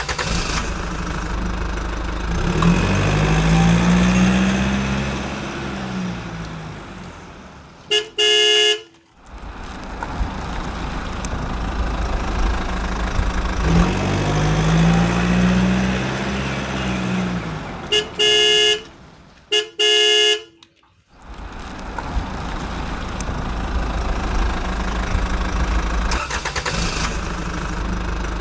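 Truck engine running and revving, rising and falling in pitch twice, broken by loud horn honks: one about eight seconds in and two more close together around eighteen to twenty seconds.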